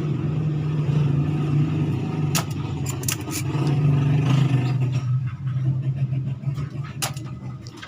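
A steady low hum, like a motor running, with a few sharp clicks and knocks.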